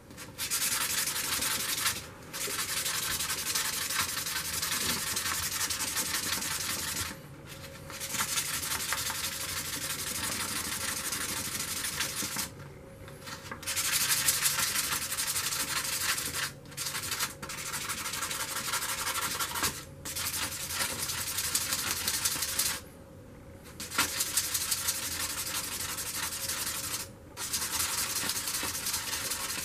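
A stainless steel stamp tip rubbed back and forth by hand on 600-grit sandpaper, a steady scraping in runs of a few seconds broken by short pauses. This is the last fine-grit sanding stage, bringing the steel to a satin polish.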